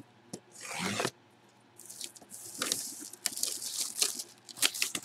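Packaging being torn open and crinkled as a boxed jersey is unpacked. A short swish comes just before a second in, then a long run of crackling and rustling with many small sharp clicks.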